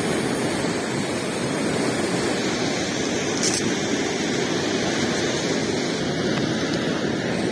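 Fast, turbulent river water rushing steadily.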